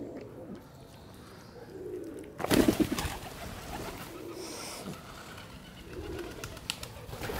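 Feral pigeons cooing, low soft coos repeating several times. About two and a half seconds in, a loud, brief rustling burst.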